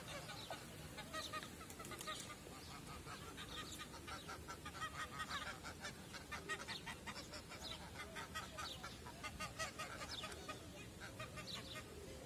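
A group of white domestic geese honking, many short calls following one another with hardly a break.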